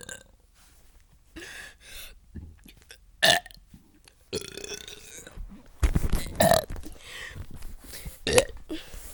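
A person burping: a short loud burp about three seconds in, a longer deep burp around six seconds, and another short loud one near the end, with fainter sounds between.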